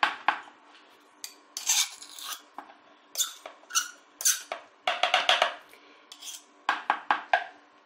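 A table knife and a metal spoon scraping and clinking against each other as thick tahini is scraped off the spoon into a plastic jug. The sound comes as a series of short scrapes and clinks with pauses between them.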